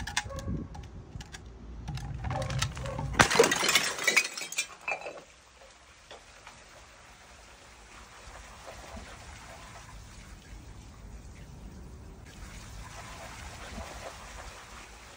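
Large glass soda bottle rolling down concrete steps with a low rumble, then shattering about three seconds in with a loud crash and splash of glass and liquid. Afterwards the soda runs and fizzes down the steps in a steady quiet hiss.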